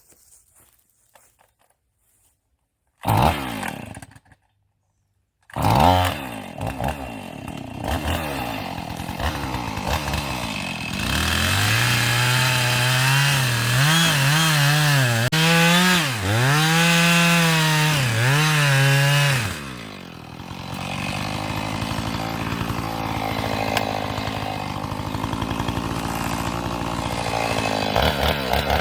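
Chainsaw cutting through a blown-down poplar trunk. After a few nearly silent seconds and a short burst, the saw comes in, revs up and runs at high speed, its pitch dipping and wavering as the chain works in the cut. About twenty seconds in it drops back to a lower, steadier speed.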